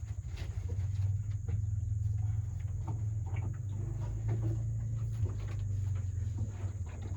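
Goats feeding at barn feeder bowls, with scattered small knocks and rustles. Under them runs a steady low hum and a steady high-pitched whine.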